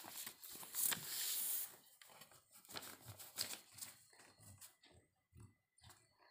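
Pencil and eraser rubbing on paper in short scratchy strokes; the longest and loudest stroke comes about a second in.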